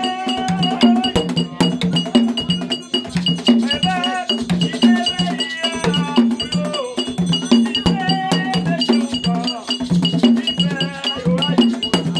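Live gagá percussion: a drum beat about twice a second under a rapid, steady clanking of a metal bell, with voices singing over it.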